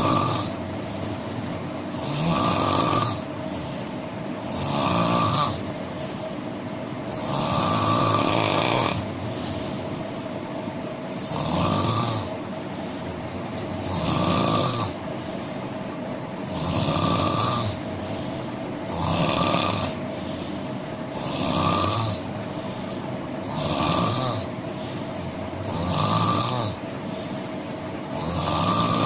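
A person snoring in a steady rhythm, a dozen snores about two and a half seconds apart, each lasting about a second with a rasping hiss.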